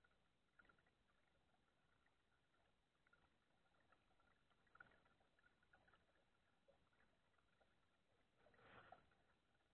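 Near silence: faint scattered ticks, with a brief faint rustle near the end.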